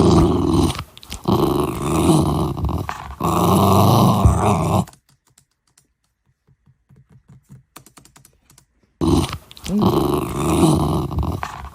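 Doodle dog growling in long, rough bursts, with a quiet pause of about four seconds in the middle before it growls again.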